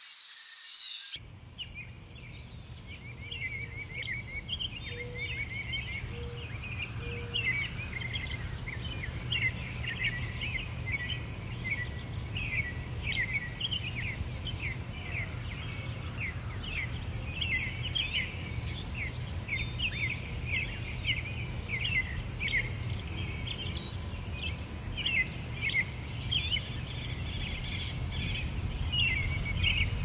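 A chorus of songbirds chirping and singing, many short quick notes overlapping, over a steady low rumble; it starts abruptly about a second in.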